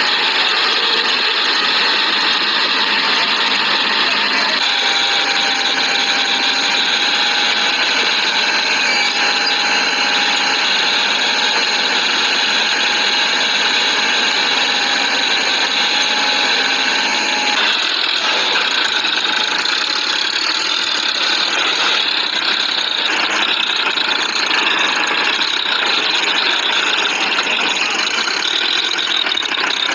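Farm tractor's diesel engine running hard as the tractor churns through deep paddy mud, with mechanical rattling and a high steady squeal. The squeal starts about five seconds in and stops a little past the middle.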